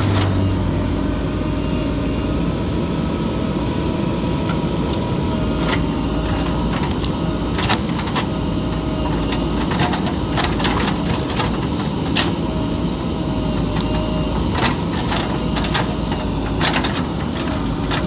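JCB 3DX backhoe loader's diesel engine running steadily as the rear backhoe arm digs. Sharp clicks and knocks from the bucket working the ground come scattered through the second half.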